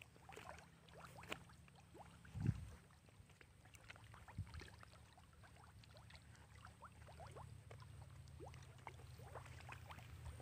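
Faint outdoor ambience by a pond in rice paddies: a low, steady rumble on the microphone, a soft bump about two and a half seconds in, and many short, faint chirps scattered through it, more of them toward the end.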